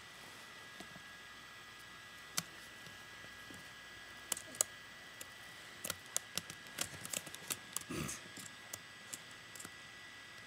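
Irregular clicks and taps from a baby's hands on a laptop keyboard close to the microphone, sparse at first and bunched about six to seven and a half seconds in, with one duller bump near eight seconds. Under them runs a steady electronic hiss with a thin high whine from the laptop's microphone.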